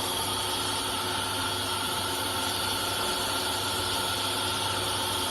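CNC router running: a steady high-pitched spindle whine over a constant machine hum, setting in right at the start.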